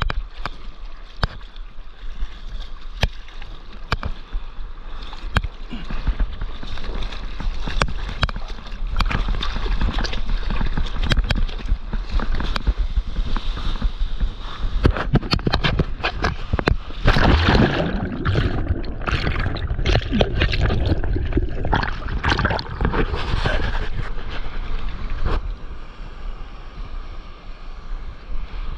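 Seawater splashing and rushing around a board ridden through breaking surf, heard from a camera right at the water, with many sharp ticks of drops and spray hitting it over a steady low rumble. The splashing turns loud and busy about seventeen seconds in and eases off a few seconds before the end.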